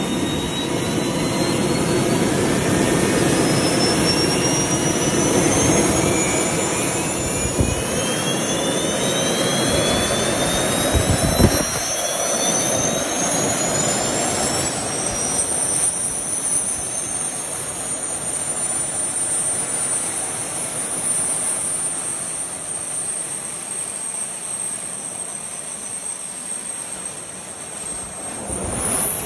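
Small jet turbines, as on a jet suit, spooling up: several whines rise in pitch at different rates over about fifteen seconds and then hold a steady high whine over a noisy rush. A heavy low rumble drops away about twelve seconds in.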